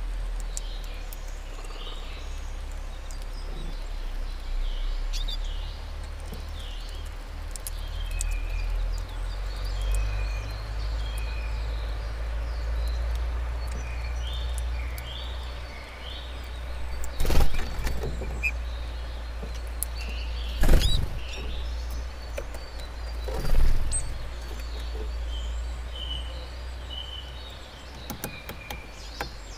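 Small songbirds chirping and calling in short, repeated notes, with faint clicks of sunflower seeds being cracked, over a steady low rumble. Three louder rushes of noise come in the second half.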